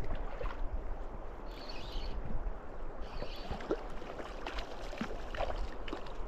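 Shallow river water running and lapping close by, with small splashes now and then.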